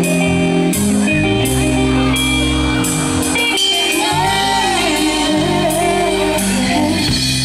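Live rock band playing: electric guitar, bass and drum kit, with a woman singing into a microphone over them.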